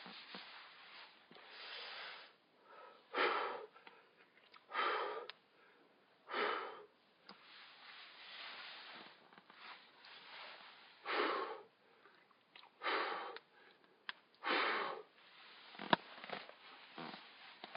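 A person's short, sharp breaths, about six of them, a second or two apart, with a single sharp click near the end.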